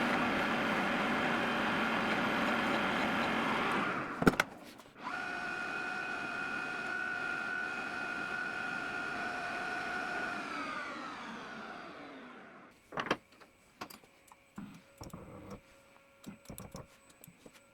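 Machine-tool motor running with a loud, rough sound, a sharp clunk about four seconds in, then running again with a steady whine that falls in pitch as it spins down and stops about 12 seconds in, followed by a few light clicks and knocks.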